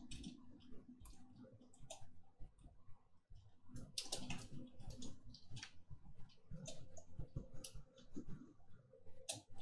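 Typing on a computer keyboard: quick, irregular key clicks.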